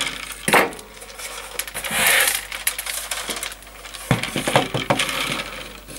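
Short cut-off ends of rattan cane clicking and rattling against the basket's wooden base and the tabletop as the basket is tipped and the loose pieces are brushed away, with a louder swish about two seconds in.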